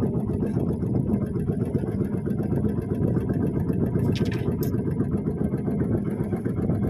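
A small boat's engine running steadily, a low even rumble, with a brief hiss and a click about four seconds in.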